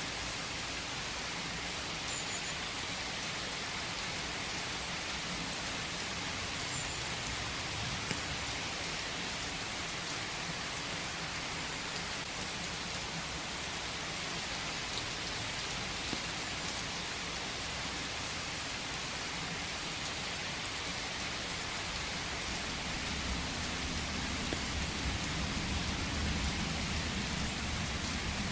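Steady rain falling in a forest: an even hiss of many drops. A low rumble swells in underneath near the end.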